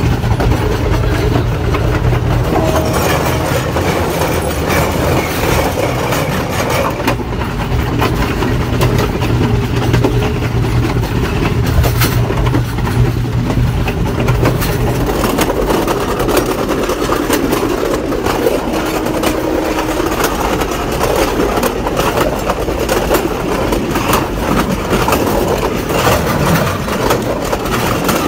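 Diesel train running along the track, heard from the front of the train: a steady low engine drone under running and wheel noise, with scattered clacks from the wheels on the rails. The drone eases off about halfway through.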